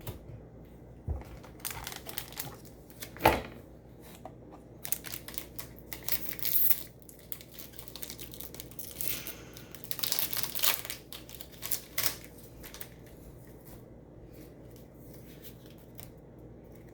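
Foil booster-pack wrapper being torn open and crinkled, in several irregular rustling bursts with a sharp rip about three seconds in.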